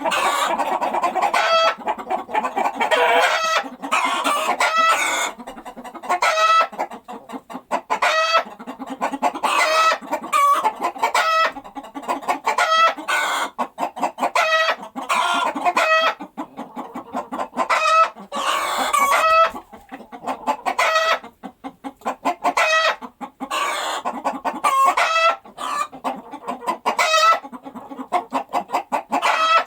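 Hen cackling after laying an egg, the egg song: runs of rapid clucks broken by longer, louder drawn-out calls, over and over.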